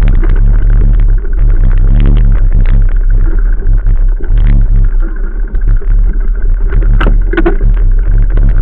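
Loud, distorted rumble of wind and vibration on a handlebar-stem-mounted action camera's microphone while riding, with a steady low hum and irregular knocks, two sharper ones about seven seconds in.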